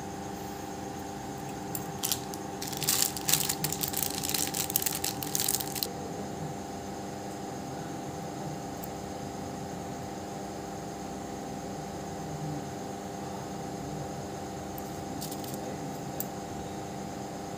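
Hands working small craft materials close to the microphone: a few seconds of crackling, rustling handling noise starting about two seconds in, and a few light clicks near the end. Under it runs a steady hum.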